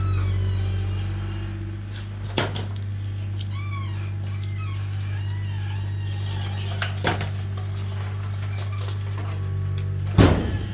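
Firewood being handled and stacked: a few sharp knocks of wood, the loudest near the end, over a steady low hum, with a run of short squeaky chirps midway.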